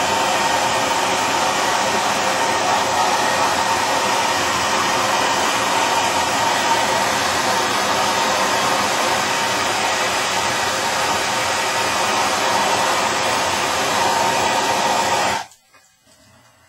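A plumber's soldering torch flame burning with a steady roar, heating a copper pipe joint on a shower valve for sweat-soldering. It is shut off suddenly about 15 seconds in.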